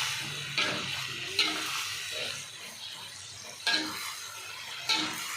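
Food sizzling as it fries in a hot pan while a spatula stirs it, scraping and knocking against the pan four times.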